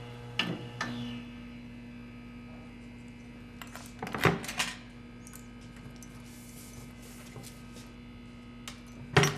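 Steady electrical mains hum, with a few sharp clicks in the first second. About four seconds in, a bunch of keys rattles and clicks as a key is turned in a wooden locker's lock, and a single sharp click comes near the end.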